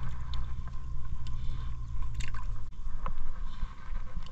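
Water sloshing and gurgling around a wading angler's body, over a continuous low rumble, with a few faint clicks.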